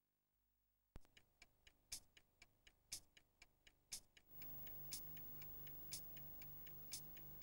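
Clock-ticking sound effect for a TV news programme's opening titles. It starts about a second in, with a sharp tick once a second and lighter ticks between, about four a second. About four seconds in, a low pulsing drone joins under the ticks.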